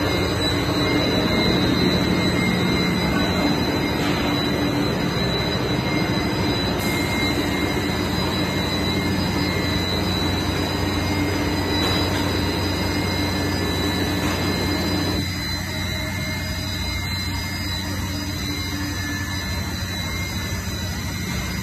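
Twin-screw plastic sheet extrusion line running: a steady machinery drone with a constant high whine. It grows somewhat quieter about fifteen seconds in.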